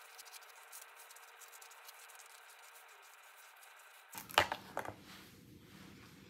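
Hairbrush drawn through long hair, a faint scratchy brushing with fine ticks. A little after four seconds in, two louder brief rustles as the hair is worked and tossed with the hands.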